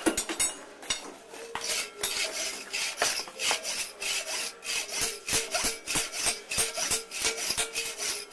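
Hacksaw cutting through a thin metal rod, rasping back-and-forth strokes at about three a second, with the metal ringing faintly under the blade.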